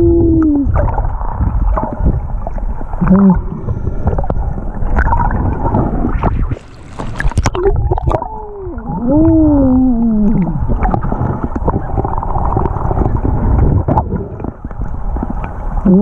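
Underwater sea noise of water rushing and bubbling, with a hiss of bubbles about seven seconds in. Several low, drawn-out pitched calls slide up and down in pitch, the clearest arching up and then down about nine to ten seconds in.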